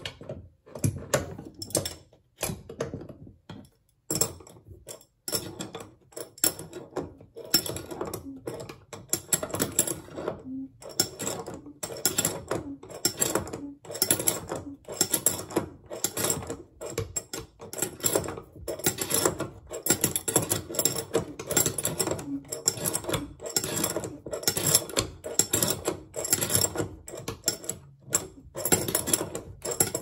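Adjustable wrenches clicking and scraping on a brass faucet cartridge and its nut as the cartridge is threaded back into the handle valve and tightened. The metallic clicks come quickly and irregularly, with a short pause early on.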